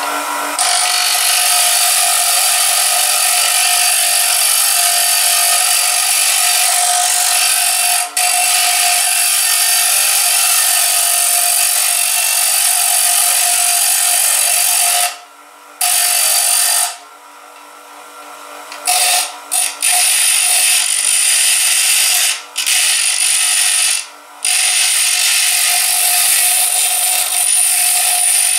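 Bench grinder running with a metal seat-hinge part pressed against its grinding stone, grinding the broken-out edges flush: a loud, hissing grind over the motor's steady hum. In the second half the part is lifted off the wheel several times, so the grinding breaks off briefly while the motor keeps running.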